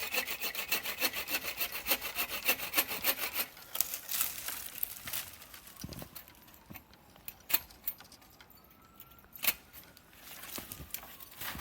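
Hand saw cutting through a felled log, with quick back-and-forth strokes for the first few seconds. It then slows to a few sharp separate knocks, and the strokes pick up again near the end.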